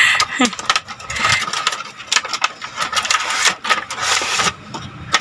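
Packaging being handled during an unboxing: irregular crinkling and rustling with many sharp little clicks and crackles, as of plastic wrapping and a cardboard box.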